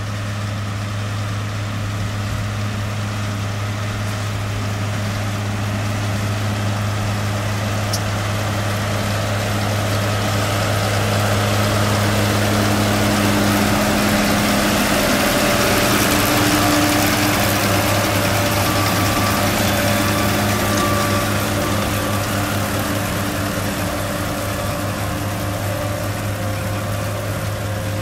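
New Holland T6080 tractor's diesel engine running at steady working revs while it drives a Kuhn FBP round baler-wrapper, a steady low hum. It grows louder as the rig passes close about halfway through, then eases off.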